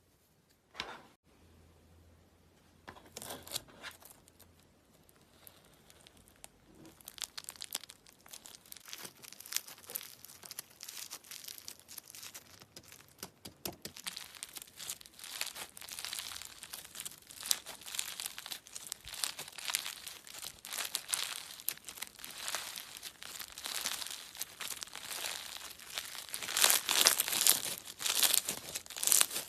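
Slime being squeezed and stretched by hand, giving off dense crackling and popping. It starts sparse after a single soft knock, then thickens into a steady crackle that is loudest near the end.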